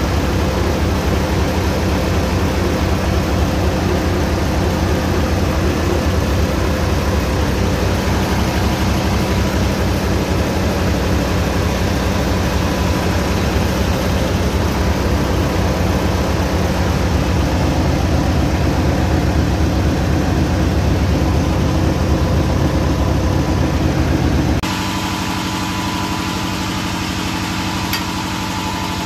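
Mitsubishi Fuso 8DC11 V8 diesel engine running steadily under test, an engine whose right-bank head gasket is leaking compression into the cooling water. About 25 seconds in it gives way abruptly to a quieter steady machine hum with a thin whine.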